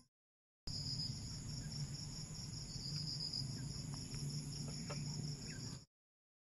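Crickets chirping in a steady, pulsing chorus over a low hum; the sound cuts in just after the start and stops abruptly near the end.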